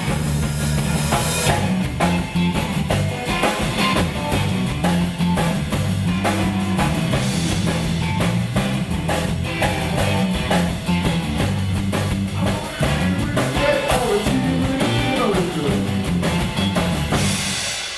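Live blues band playing the instrumental close of a song on electric guitar, bass and drum kit, with a cymbal wash near the end as the song finishes.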